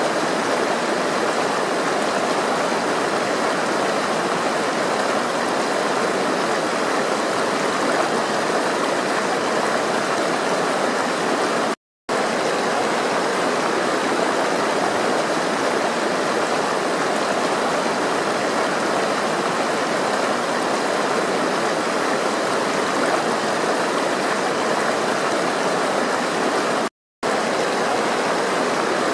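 Flowing water running steadily with an even rush, cutting out to silence twice for a split second, about twelve seconds in and again near the end.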